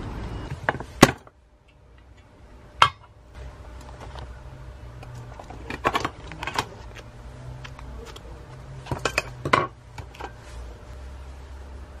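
About a second of steady rain hiss. Then hands rummage through sewing supplies in a metal tin, with scattered sharp clinks and knocks of metal, in clusters around six seconds and again around nine to ten seconds.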